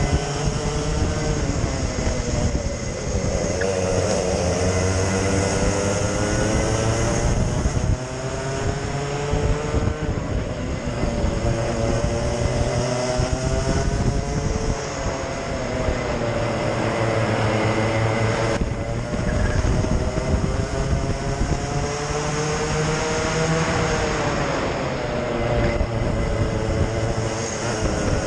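Racing kart engine at full throttle, heard onboard from the camera: the revs climb steadily, then drop sharply, several times as the kart laps the track, with other karts' engines close around.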